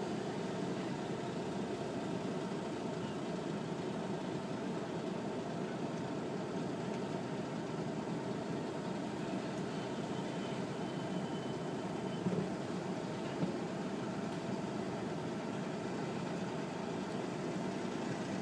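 Dotto road train's engine running steadily as it travels, an even running noise with two light knocks about two-thirds of the way through.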